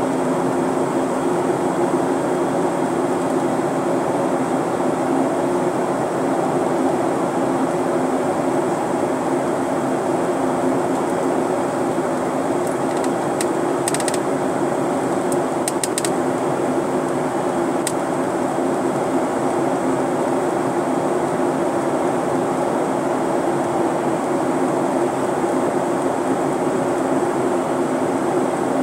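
Steady cabin noise inside a Delta Boeing 737-900ER in flight: the constant drone of its CFM56-7B turbofan engines and rushing airflow, with a low hum running under it. A few faint clicks come about halfway through.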